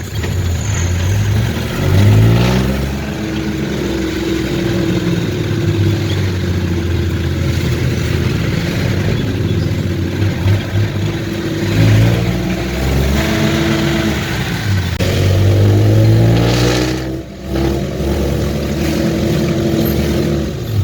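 A vehicle engine running on the road, its pitch climbing as it accelerates about two seconds in, and again around twelve and fifteen seconds, easing off in between.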